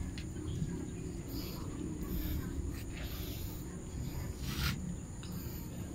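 Low steady background rumble with a few faint rustles of a nylon fishing net being handled as prawns are worked free of it.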